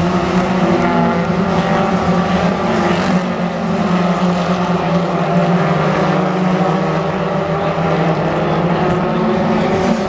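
A pack of BTCC touring cars with turbocharged two-litre four-cylinder engines running hard through a corner. Their overlapping engine notes blend into one steady, unbroken drone.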